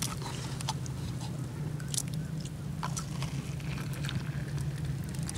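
Scattered soft clicks and taps as a soot-blackened kettle is handled with a cloth and tea is poured into a plastic cup, over a steady low hum.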